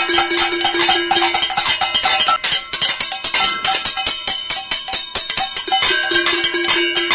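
Cooking pots being banged rapidly in a cacerolazo: a dense, loud clatter of metal strikes, many a second, with the pots ringing. One pot's ringing note holds for about a second near the start and again near the end.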